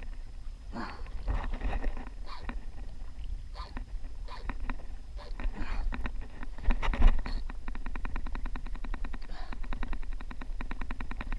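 Spinning reel clicking rapidly and evenly for the last few seconds while a fish pulls against a bent rod. Before that come scattered knocks and handling noises.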